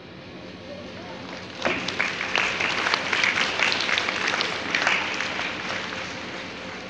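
Audience applauding: clapping breaks out about one and a half seconds in, then carries on and slowly tapers.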